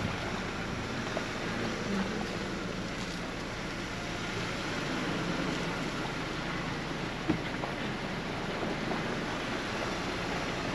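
Ford Bronco creeping along a dirt off-road trail: a low, steady engine and drivetrain rumble under a rushing noise of wind on the microphone, with one sharp knock about seven seconds in.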